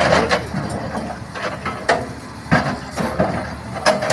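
A blade chopping into wood: several sharp, irregular strikes, over the low, steady run of an excavator engine.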